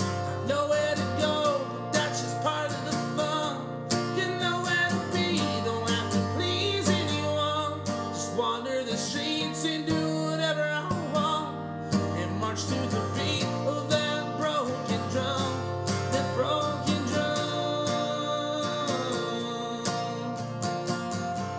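Acoustic alt-folk band playing an instrumental break: strummed acoustic guitar with a lead melody over it.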